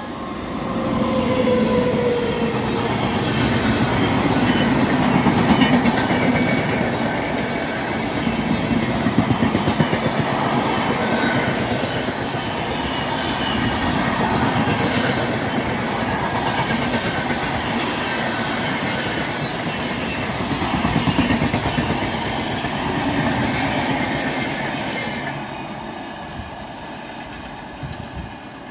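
Express train of LHB coaches behind an electric locomotive passing at speed close by, a steady loud rush of wheels on rails and rolling coaches. Near the end it drops away to a fainter, distant train rumble.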